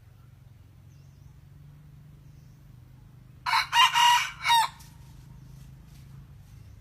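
A red junglefowl rooster crows once, a short crow of about a second broken into about four parts that ends in a quick falling note.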